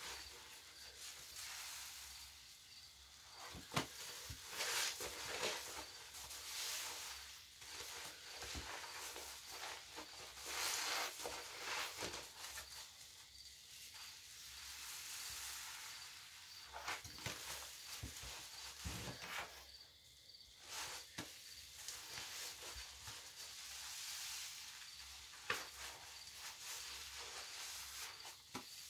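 Wet sponges squeezed and kneaded by hand in thick soapy lather: a fizzing, crackling hiss of foam that swells with each squeeze, with soft squelches and a few sharp wet clicks.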